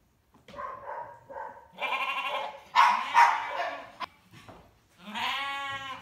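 Sheep bleating: about four wavering calls, the loudest about three seconds in, with a short click just after it.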